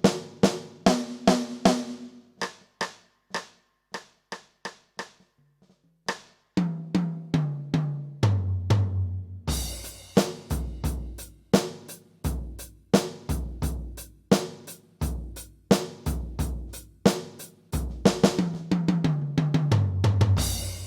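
Yamaha DTX720k electronic drum kit with its DTX700-series module, played as a demo of a kit voice. It opens with evenly spaced single hits, then a tom fill stepping down in pitch. About a third of the way in a crash starts a steady beat of kick, snare and cymbals, and near the end comes another descending tom fill and a final crash.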